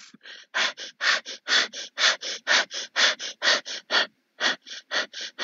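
A person imitating a dog panting: quick, rhythmic, breathy in-and-out puffs, about four a second, with a short break about four seconds in.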